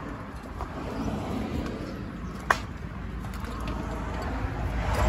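Background noise of a noodle stall's cooking counter, with one sharp clink of a utensil or bowl about halfway through.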